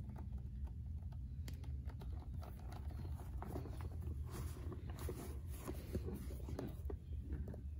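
Hands handling and rummaging in a vintage Coach leather handbag: rustling, rubbing and a run of small clicks and taps, busiest in the middle, over a steady low hum.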